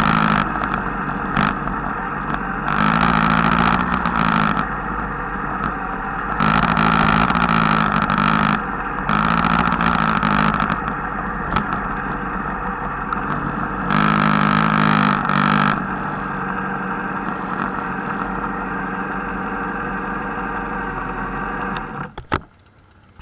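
Motorcycle and scooter engines running close by, with several louder stretches of a couple of seconds each where engines are revved. The engine noise drops away sharply near the end, followed by a few clicks.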